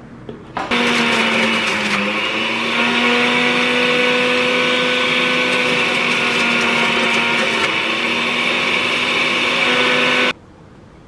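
Tefal centrifugal juicer's motor running as it juices celery stalks: a loud, steady whine that starts about a second in, dips briefly in pitch about two seconds in, and cuts off suddenly near the end.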